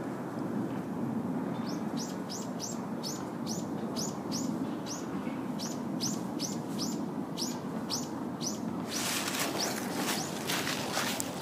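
A small bird calling over and over, a quick falling chirp about two to three times a second, over a steady low background rumble. About nine seconds in, crunching and rustling of dry fallen leaves under footsteps takes over and is the loudest sound.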